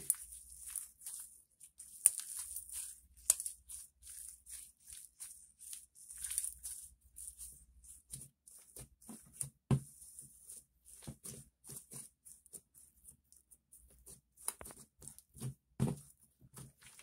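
Glossy slime being squeezed and kneaded by hand against a tabletop: irregular sticky crackling with a few sharp, louder pops.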